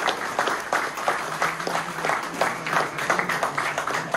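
Audience applauding, many hands clapping, with a low steady tone joining about a second in.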